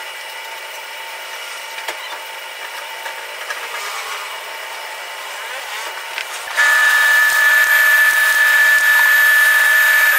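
Steady machine hum, then about six and a half seconds in a power tool starts up loud with a steady high whine and hiss, runs for nearly four seconds and cuts off suddenly.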